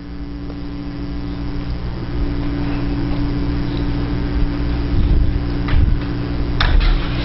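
Maytag MHWZ600 front-loading washing machine running: a steady motor hum that swells slightly over the first couple of seconds, with a few brief clicks near the end.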